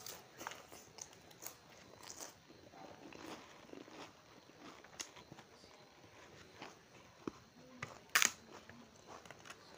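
Close-up eating sounds: a person chewing with scattered soft mouth clicks and smacks, and one sharper crackle a little after eight seconds in.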